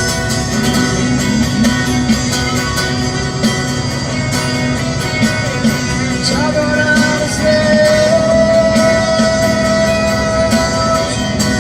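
A band playing worship music, guitar prominent, with a melodic line that holds one long note from about six seconds in.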